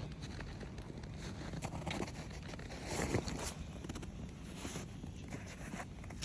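Footsteps in snow, a run of irregular steps on a snowy, icy path.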